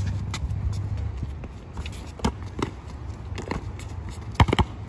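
Basketball bouncing on an outdoor hard court, with scattered footsteps and sneaker scuffs of two players, and a few sharp knocks close together near the end as the ball is shot at the hoop.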